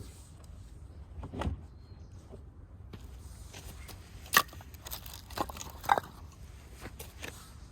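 A few separate sharp cracks and knocks over a low steady rumble, the loudest about four seconds in.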